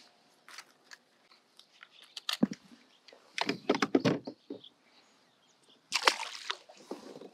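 Scattered clicks, knocks and rattles of fishing gear being handled. There is a short clatter about two and a half seconds in, a longer run of rattling knocks around four seconds in, and another brief burst about six seconds in.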